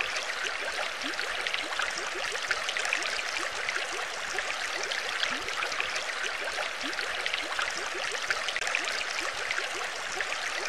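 Underwater ambience sound effect: steady bubbling and trickling water, full of many short rising bubble blips.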